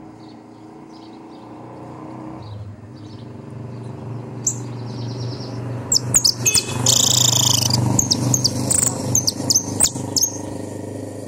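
Caged saffron finch (jilguero riojano) singing: short, high, sharp notes and a fast trill that start about four seconds in and are loudest in the second half. A steady low hum runs underneath.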